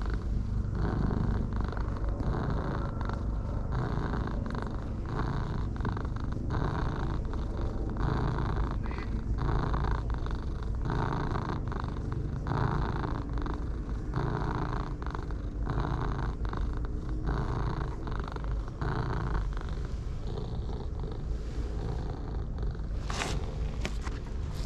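Pale ginger tabby cat purring loudly and contentedly while having its chin scratched. The purr pulses in a steady rhythm, a little more than once a second, with a brief burst of noise near the end.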